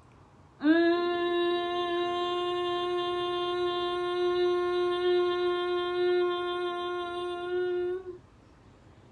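A woman humming one long, steady note for about seven seconds, starting with a brief upward slide in pitch: a vocal sound made to vibrate in the head during yoga breathing practice.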